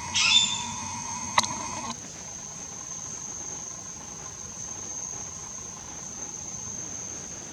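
Steady, high-pitched insect drone. In the first two seconds louder sounds sit over it, ending with a sharp click about a second and a half in.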